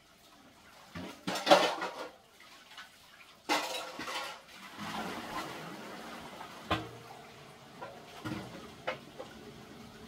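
Household containers and utensils clattering as they are moved about: two loud bursts of clatter in the first half, then a few single sharp knocks.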